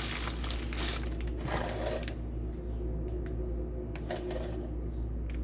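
Dry boxed pasta noodles rattling and their packaging crinkling for about two seconds, then a few scattered light clicks.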